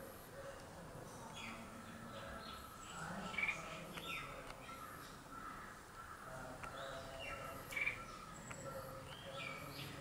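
Red-whiskered bulbul singing: short, clear notes in separate phrases about a second or more apart, the loudest about three and a half and about eight seconds in, over steady background noise.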